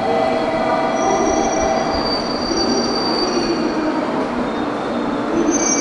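Train running on the rails: a steady rumble with thin, high-pitched wheel squeal coming and going, strongest near the end.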